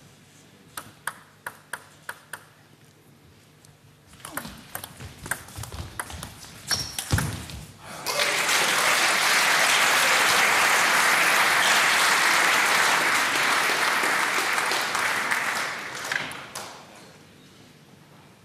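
Table tennis ball clicking off bats and table in a rally, sharp evenly spaced hits at first, then a quicker run of hits. About eight seconds in, the hall crowd breaks into applause for the point, which fades out near the end.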